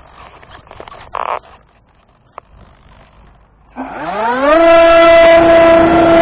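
Electric motor and propeller of a radio-controlled model aircraft, heard from its onboard camera. After faint handling rustles and clicks, the motor spins up about four seconds in with a quick rising whine, then holds a loud, steady whine at full throttle.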